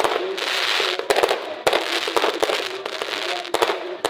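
Aerial fireworks going off: several sharp bangs over continuous crackling.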